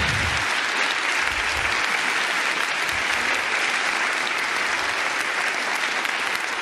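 Audience applauding, a steady dense clapping that eases off slightly near the end.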